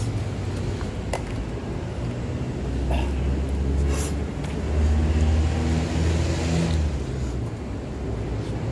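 A motor vehicle's engine rumble going by, swelling about two and a half seconds in and fading near the end, with a couple of sharp clicks.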